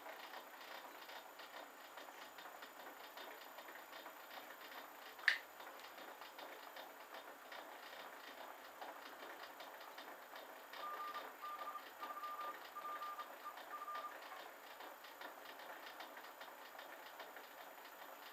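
Clarke CL500M mini lathe running in reverse, its leadscrew driving the carriage back with the threading tool withdrawn, making a fast, steady mechanical ticking. A single sharp click comes about five seconds in, and a short run of high chirps a little past ten seconds.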